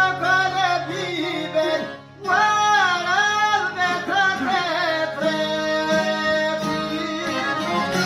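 Albanian folk song: a singer's ornamented, wavering melody over string accompaniment, with a brief dip about two seconds in and longer held notes in the second half.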